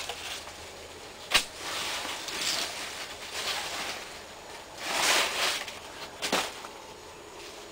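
Secateurs snipping courgette stems, with a sharp click about a second and a half in and another near six seconds. In between, the large courgette leaves rustle as the plants are pushed aside.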